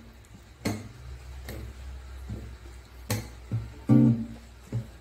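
Nylon-string classical guitar playing an unaccompanied intro: single strummed chords left to ring, about once a second, coming a little quicker near the end.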